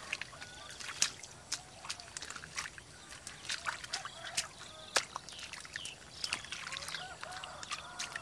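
Hands squelching and groping through wet mud in shallow water, with irregular wet slaps and small splashes several times a second.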